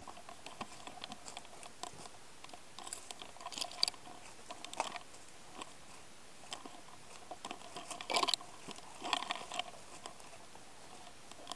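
Close-up handling noise of an airsoft sniper rifle and tactical gear: light, scattered rustles and clicks, with dry brush crunching as the player shifts and crouches. The loudest rustles come about four, eight and nine seconds in.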